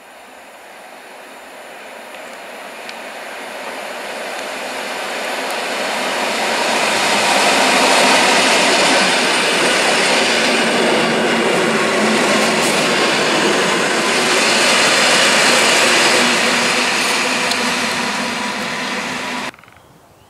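Koleje Śląskie regional electric multiple unit approaching and passing close by at speed, a broad rail noise that builds steadily and is loudest for several seconds as the cars go by. The sound cuts off suddenly near the end.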